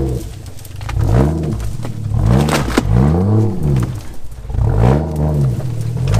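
Turbo Barra-swapped Nissan GU Patrol's engine revving up and falling back in about four throttle bursts as it crawls up a rocky track, with a sharp knock about two and a half seconds in.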